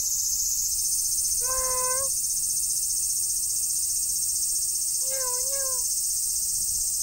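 Steady, high-pitched chorus of insects shrilling, with two short pitched vocal calls over it, one about a second and a half in and one about five seconds in.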